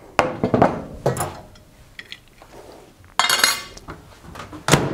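Glass microwave turntable plate and roller ring clinking and clattering as they are handled and set down on a wooden bench, in several short bursts, with one sharp knock near the end.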